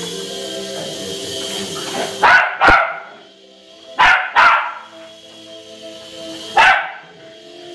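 A small dog barking five times, in two quick pairs and then a single bark, over music playing from a television.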